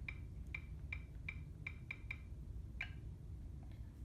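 Qolsys IQ Panel 2 touchscreen giving short click sounds as keys are tapped, a quick irregular series of about two a second while Wi-Fi details are typed in.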